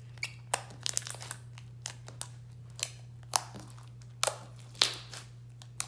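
Glittery slime mixed with plastic gems, stars and beads being squeezed and poked by fingers, giving irregular sticky pops and crunchy clicks.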